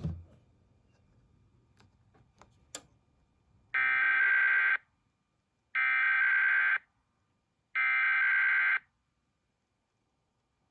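Emergency Alert System SAME header: three identical bursts of buzzy digital data tones, each about a second long and a second apart, opening a required weekly test. A few faint clicks come before the first burst.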